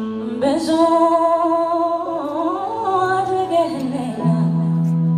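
A woman singing live into a microphone over keyboard accompaniment, holding long notes that bend up and down in pitch. About four seconds in a steady low accompaniment note takes over.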